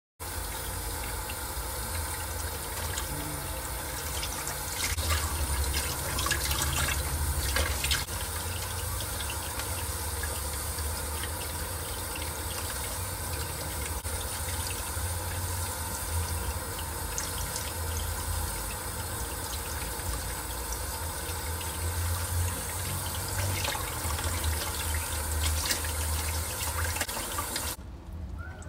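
Kitchen faucet running a thin stream into a stainless steel sink, splashing over hands and squid as it is rinsed. The flow cuts off near the end, leaving dripping.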